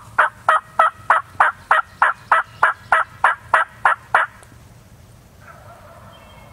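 Wild turkey yelping: a long, evenly paced run of about sixteen loud yelps, roughly three a second, stopping about four seconds in.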